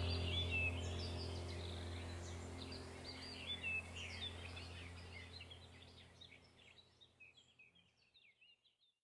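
Birds chirping and twittering over a low steady hum, the whole track fading out gradually until it dies away near the end.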